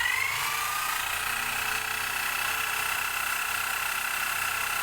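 A power tool's electric motor spinning a homemade mini lathe chuck. Its whine finishes rising in pitch in the first second, then the motor runs steadily at full speed.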